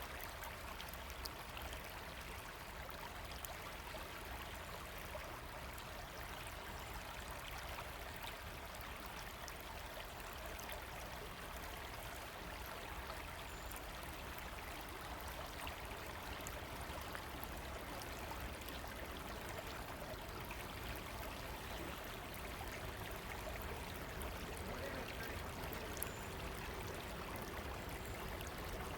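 A river running, its water making a steady, even rush.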